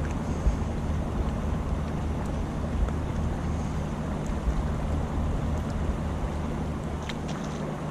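Steady low drone of a river barge's engine, with gusty wind rumbling on the microphone. A few faint clicks come near the end.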